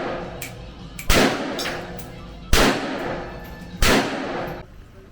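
Three gunshots about a second and a half apart, each a sharp crack followed by a long echoing tail.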